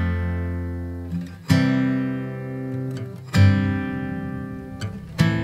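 Background music: acoustic guitar strumming chords, a sharp strum about every two seconds, each left to ring out.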